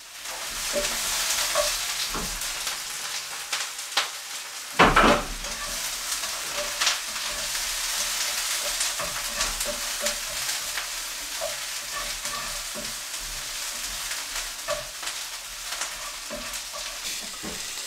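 Food sizzling in a frying pan on a gas hob, a steady hiss with clinks and scrapes of a utensil in the pan and a loud knock about five seconds in.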